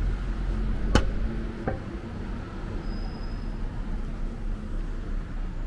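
Road traffic running past on a town high street, a steady low rumble. A sharp knock sounds about a second in, with a softer one shortly after.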